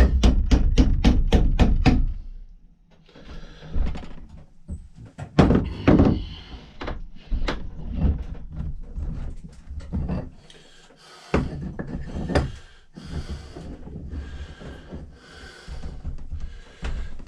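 Hammer blows on a steel axe head, driving out the old handle that is rusted in: a quick run of about eight strikes in the first two seconds, then scattered single knocks and clunks.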